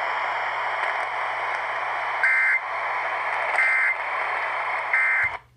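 Three short bursts of EAS end-of-message data tones (the warbling two-pitch SAME digital code), about a second and a half apart, over a steady radio hiss; everything cuts off abruptly just before the end. The bursts mark the end of the severe thunderstorm warning.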